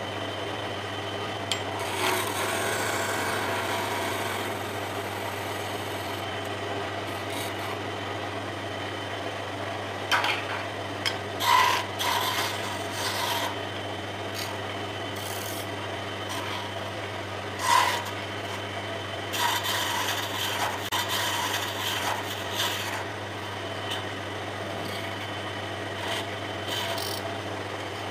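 Wood lathe running with a steady low hum while a hand-held chisel cuts into the spinning wooden spindle, giving several bursts of scraping as it shapes the rings.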